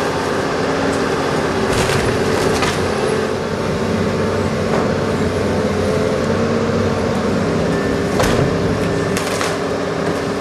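Heavy demolition machinery running steadily while a wooden scoreboard is torn down, with a handful of sharp cracks and splintering of timber breaking through the engine noise.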